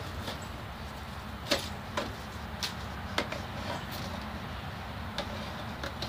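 Scattered sharp clicks and taps, about five, over a steady low hum.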